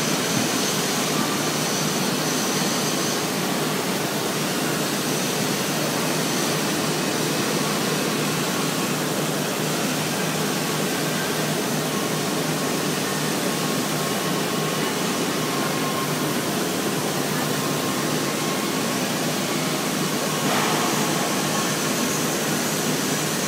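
Steady, even rushing noise of a steel foundry floor during bottom-pour casting from a ladle, with flames burning off the tops of the moulds.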